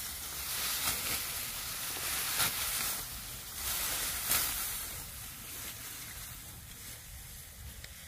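Dry rice stalks rustling and swishing as they are cut and gathered into a bundle by hand, with sharp crackles now and then. Busiest in the first half, then quieter.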